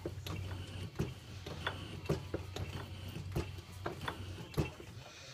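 Keyway being cut into a change gear's bore on a metal lathe, the cutting tool stroked back and forth through the bore, a few thousandths per pass. Each stroke gives a sharp scraping click, about two to three a second, over a steady low hum.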